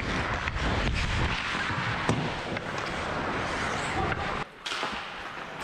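Hockey skates gliding and scraping on the ice, with wind rushing over the microphone. A few light clicks of the stick on the puck come through.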